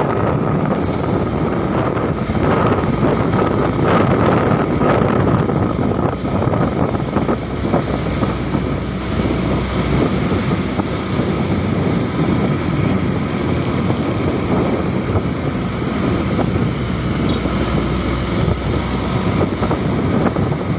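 Vehicle moving at speed: a steady engine and road noise, with wind buffeting the microphone.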